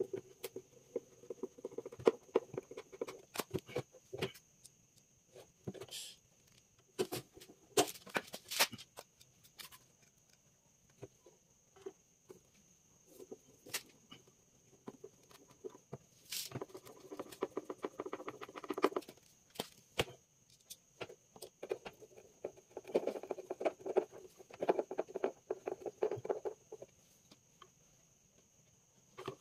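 Hand work with a screwdriver on a wooden speaker cabinet while a woofer is mounted: scattered clicks and taps, with a few stretches of rapid gritty scraping as screws are turned in. A faint steady high whine runs underneath.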